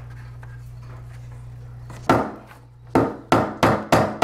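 Hammer blows on a wooden wall stud, fastening electrical cable to it: one blow about two seconds in, then a quick run of blows, about three a second, near the end.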